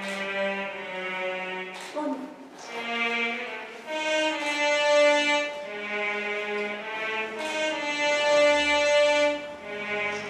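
Slow music: a bowed string instrument plays a melody of long, held notes, each lasting about a second, with short breaks between phrases.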